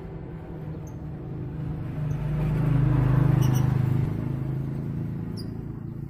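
A motor vehicle passing by, its low engine hum swelling to loudest about three seconds in and then fading away.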